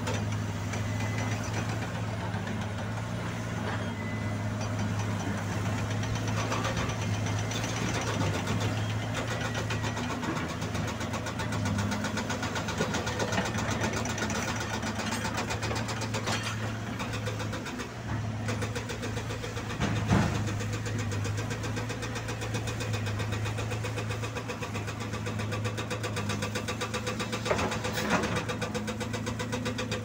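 Caterpillar 320 hydraulic excavator's diesel engine running steadily at close range, with a few sharp knocks of rock and steel, the loudest about twenty seconds in.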